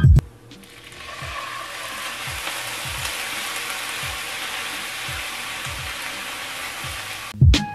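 Sliced onions sizzling in a hot frying pan. The sizzle swells over the first second or so, holds steady, and cuts off suddenly near the end.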